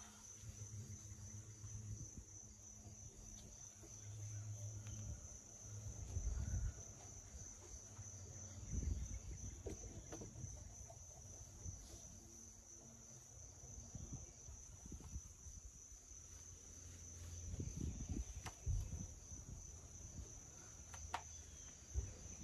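Steady, high-pitched trilling of an insect chorus, with irregular low rumbles underneath.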